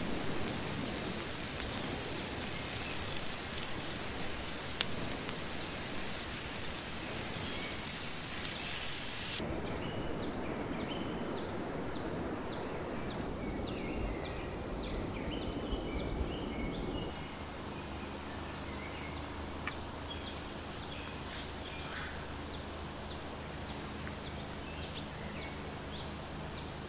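Lamb testicles and vegetables sizzling on a hot stone slab over a wood fire, a steady hiss. About nine seconds in it cuts to small birds chirping in quiet open-air ambience, with a faint low hum in the last third.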